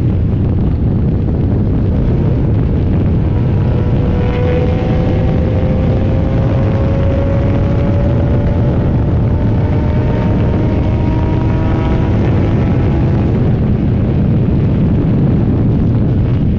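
Open-cockpit race car's engine under hard acceleration, heard from inside the cockpit, its pitch climbing slowly as the car gathers speed, with wind rushing over the car.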